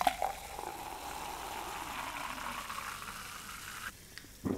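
Pepsi poured from a plastic bottle into a glass mug, splashing and fizzing, the pitch of the pour rising as the mug fills; the pour stops about four seconds in, and a short thump follows.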